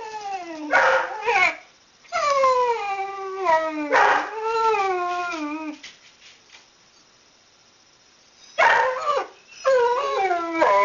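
A whippet rooing: a run of howl-like calls, each sliding downward in pitch, some short and some lasting about two seconds, with a pause of two or three seconds in the middle.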